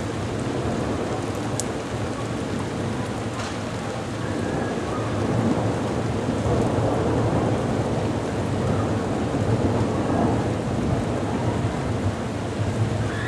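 Heavy rain pouring steadily, with a long rumble of thunder swelling about five seconds in and dying away near the end.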